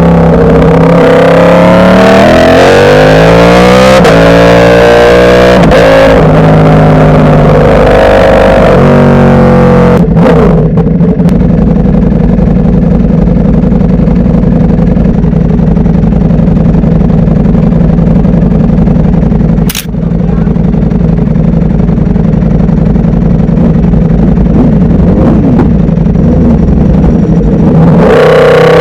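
Ducati Panigale V4 S superbike's V4 engine under way, revs rising and falling through the gears for the first ten seconds. It then settles abruptly into a steady low-rev drone with a brief dropout partway through, and starts revving up again near the end.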